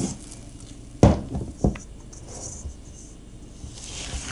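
Sourdough dough being stretched and folded by hand in a stainless steel bowl, the fifth fold. Dull thumps of the dough and bowl come at the start and three in quick succession about a second in, with soft sliding, sticky handling sounds between.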